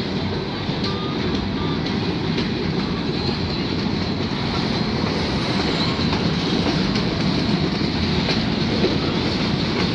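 Freight train of empty centerbeam flatcars rolling slowly past close by: a steady rumble of steel wheels on the rails, with occasional faint clicks as the wheels cross rail joints.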